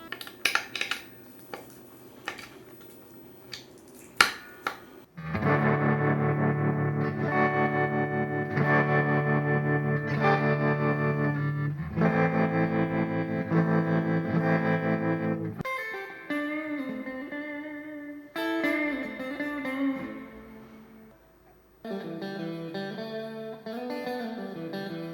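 Guitar music: a few sparse plucked notes and clicks, then from about five seconds in loud sustained chords with a steady pulsing, then a melodic line with bending notes, briefly dropping away near the end before resuming.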